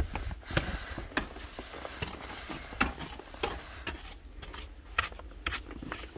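A long-handled snow brush sweeping snow and frost off a car's side window glass, in short strokes repeated irregularly about every half second to a second.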